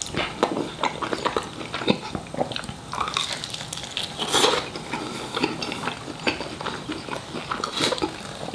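Close-up eating sounds: a bone-in chicken wing being bitten, pulled from the bone and chewed, with quick, irregular wet mouth clicks and smacks.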